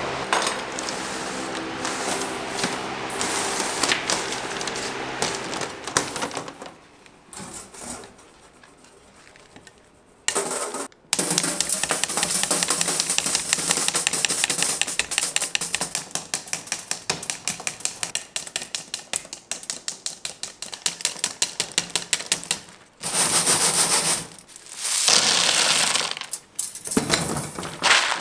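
A steel blade rapidly chopping a thin hard-candy rope into small pieces on a granite block: a long run of quick, even, sharp clicks, several a second, starting about eleven seconds in, with pieces of hard candy clattering down.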